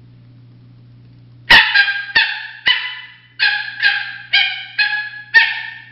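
Coyote-style barks blown on a hand-held reed predator call from an MFK Game Calls pack. There are about nine short, sharp, high-pitched barks in quick succession, starting about a second and a half in.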